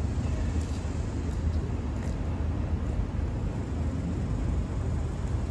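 Steady low rumble of outdoor city ambience, with a few faint light clicks over it.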